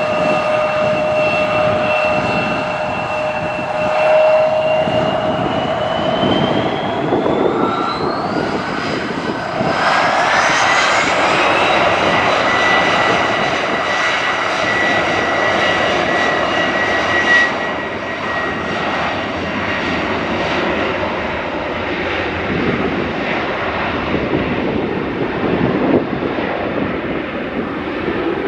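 Airliner engines running with a steady whine that rises in pitch a few seconds in as they spool up, then settles into a steady higher tone over a broad rushing noise.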